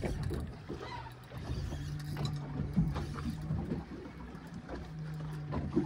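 Spinning reel being cranked in spurts against a hooked fish, its gears whirring in stretches of a second or so with short pauses between, and small clicks along the way.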